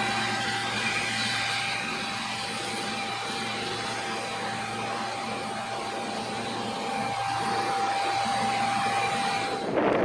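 John Deere T670i Hillmaster combine harvester running while cutting and threshing oilseed rape: a steady machine drone with a constant high whine. Just before the end it cuts off, replaced by wind buffeting the microphone.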